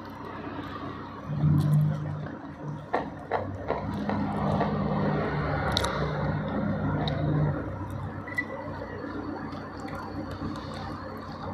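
Close-up eating sounds: chewing with the mouth closed and bare fingers tearing and picking at smashed fried chicken in a stone mortar, with scattered sharp clicks and scrapes. A low humming tone comes and goes from about a second in until past the middle, the loudest part.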